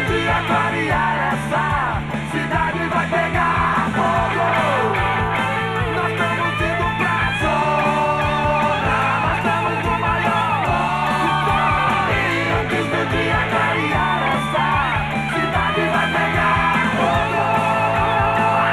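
Brazilian rock band playing an instrumental passage with no lyrics sung: bass and drums under lead lines that bend and slide in pitch.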